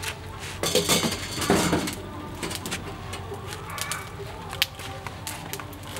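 Metal wire-mesh grill grate being set down and shifted on a stainless-steel barbecue trough, a rattling metal scrape loudest between about half a second and two seconds in, followed by scattered light metallic clinks as it is adjusted.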